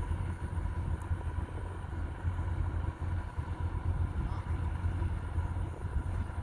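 Kubota DC-105X rice combine harvester running steadily while harvesting, a constant low engine drone with a faint steady whine over it.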